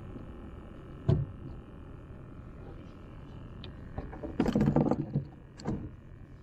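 A sharp knock about a second in, then a short clatter of knocks about four and a half seconds in and one more just after, over a steady low rumble.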